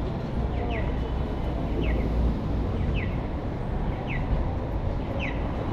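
A pedestrian crossing signal chirping: a short falling chirp repeating evenly about once a second, over a steady low rumble of city street traffic.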